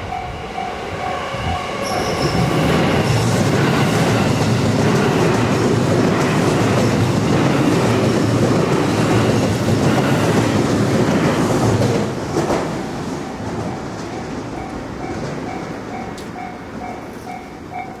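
Japanese railway level-crossing bell ringing in a fast, repeating two-tone ding. An electric commuter train passes over the crossing from about two seconds in. It is loudest for about ten seconds, then fades while the bell keeps ringing.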